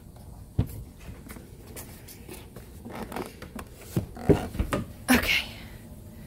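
Knocks, scuffs and handling noise from someone clambering up a ladder into a wooden garage loft with a phone in hand. There is one knock about half a second in, then a cluster of louder thumps and a brief rustle from about four to five and a half seconds.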